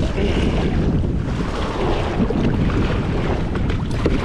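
Steady rush of moving river water around a kayak, with heavy wind noise on the microphone.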